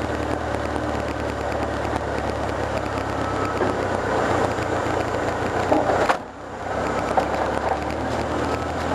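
Lancia Delta rally car driving slowly, its engine running steadily, heard from inside the cabin. The sound rises briefly just before six seconds in, then drops sharply for about half a second before coming back.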